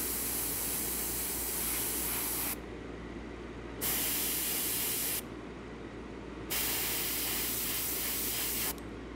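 Gravity-feed airbrush spraying paint in three bursts of hiss, each one to two seconds long with short pauses between, as detail is added to a painted lure.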